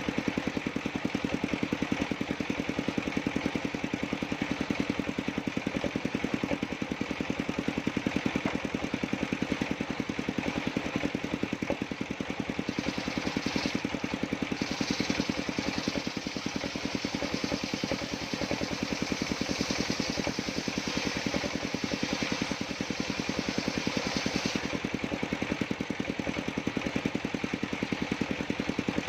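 Engine of a circular sawmill running steadily with a rapid, even beat. For about ten seconds in the middle a higher hiss joins it as the blade cuts through dry jackfruit wood.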